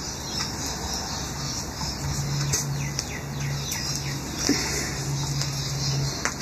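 A bird chirping: a run of short chirps, each falling in pitch, a few a second, over a low hum that cuts in and out, with a few faint clicks.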